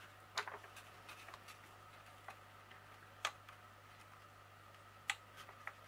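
Faint crackles and sharp ticks of a diamond painting's cover paper being peeled up off the sticky canvas adhesive, a few separate clicks, the clearest about half a second, three seconds and five seconds in.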